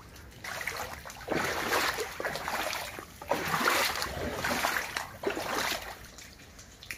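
Shallow floodwater splashing and sloshing in about four surges, each roughly a second long.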